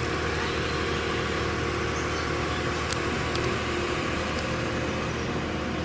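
Steady street noise with a vehicle engine idling, and a few faint clicks about three and four seconds in.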